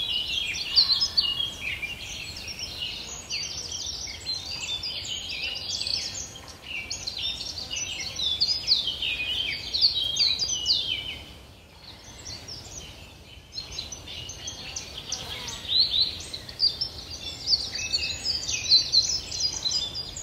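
Songbirds singing in a dense chorus of short high chirps and trills, thinning briefly a little past the middle.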